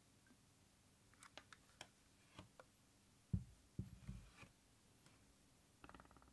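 Handling noise: a few light clicks, then a Samsung wireless speaker set down on a wooden desk with two or three dull thumps a little past the middle, and a quick run of small taps near the end.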